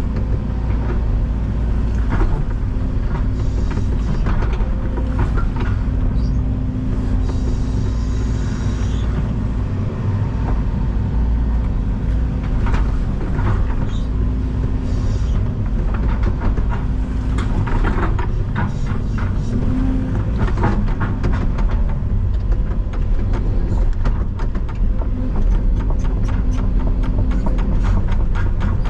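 Excavator's diesel engine running steadily under load, with scattered clanks and scrapes from the bucket digging through loose stone.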